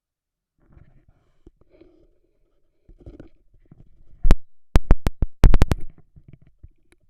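Stethoscope chest piece on a bare chest: faint, low, muffled body sounds, then a little past the middle a quick run of about eight loud, sharp clicks and knocks, the chest piece being handled and shifted against the skin.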